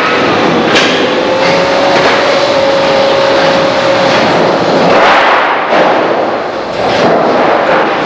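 Sawmill machinery running loudly and continuously: a steady whine over a dense rushing noise, with a few sharp knocks and a louder surge about five seconds in.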